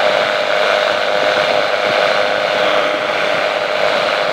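Steady drone of a light aircraft's piston engine and propeller in cruise, heard from inside the cockpit.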